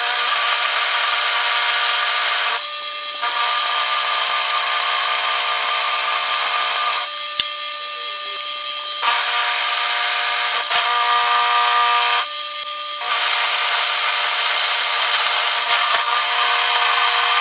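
Milling machine with an end mill cutting into a steel block: a steady spindle whine over a hissing cutting noise. The cutting noise thins out briefly three times.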